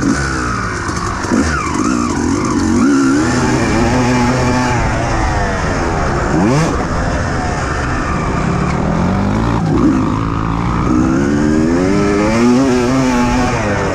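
Dirt bike engine heard close up from the rider's onboard camera, its pitch rising and falling over and over as the throttle is opened and closed around the motocross track.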